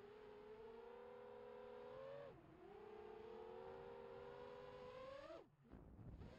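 FPV quadcopter's motors and propellers whining, heard through the onboard camera. The pitch holds fairly steady and dips briefly about two seconds in. Near the end it climbs sharply with throttle, drops away almost to nothing as the throttle is cut, then spools back up.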